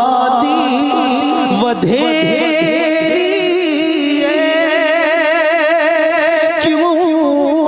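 A song with a solo singer over instrumental backing. Short sliding sung phrases lead into one long note, held with a wide vibrato from about two seconds in.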